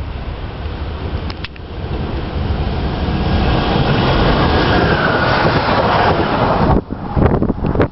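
An ŁKA regional electric multiple unit approaches and runs past close by at speed. Its wheel-and-air rush builds to a peak as it passes, with a faint whine dipping in pitch. The rush drops sharply near the end and gives way to a clatter.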